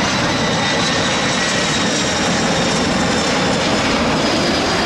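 Twin-engine wide-body jet airliner on final approach to land: a steady rushing jet-engine noise with a faint high whine over it.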